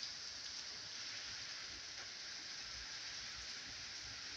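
Steady rain falling, an even hiss with no thunder heard.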